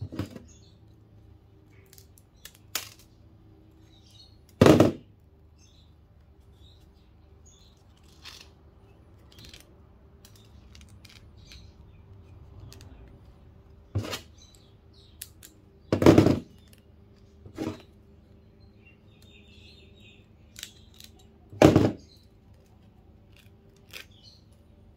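Scattered sharp snaps and clicks of small transformers being snapped apart and pulled by hand for their copper. Three louder snaps stand out, about five seconds in, past the middle and near the end, over a faint steady hum.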